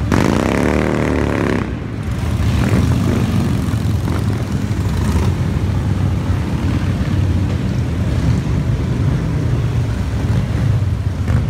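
A convoy of motorcycles, mostly cruisers, riding past one after another with a steady deep engine rumble; one bike revs up briefly at the start.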